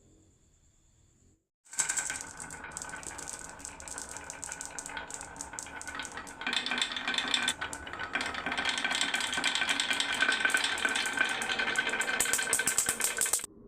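Many marbles clattering down a wooden HABA marble run, a dense stream of rapid clicks and rattles that starts suddenly about two seconds in, grows louder about halfway through, and cuts off sharply near the end.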